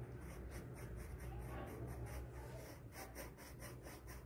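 A yellow coloured pencil scribbling back and forth on drawing paper as an area is shaded in, in quick repeated strokes several times a second, over a low steady hum.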